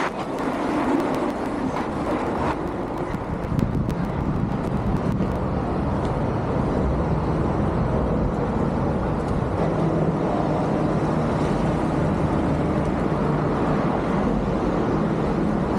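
City street ambience: a steady wash of road traffic noise with a low hum, and a few faint ticks in the first few seconds.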